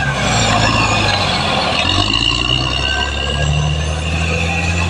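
Caterpillar D6R XL bulldozer's diesel engine running steadily, its pitch shifting slightly a couple of times, with a steady high whine over the low drone.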